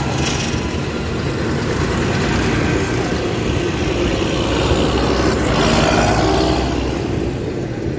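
Tractor diesel engines running, one growing louder as it passes about three quarters of the way through.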